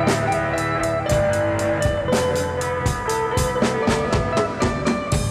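Background music: guitar over a drum kit keeping a steady beat.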